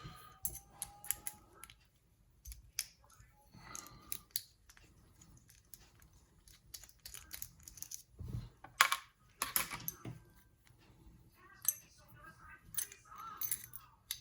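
Sesamee 533 padlock being taken apart by hand: irregular small metal clicks and taps as the lock is handled and its core is worked loose, with a couple of louder knocks about nine seconds in.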